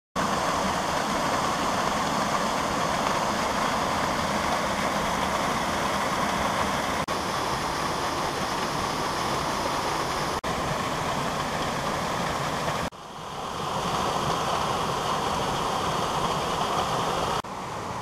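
Small waterfall and stream rushing over rocks: a steady rush of water that drops out briefly about 7, 10 and 13 seconds in, fades back up after the last drop, and turns softer near the end.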